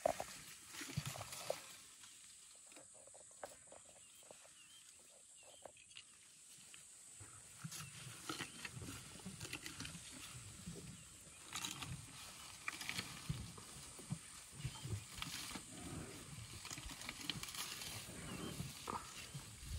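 Elephants browsing at close range: leafy branches rustling and twigs snapping as they are pulled and stripped, with irregular low thuds. It thins out for a few seconds about two seconds in, then grows busier again.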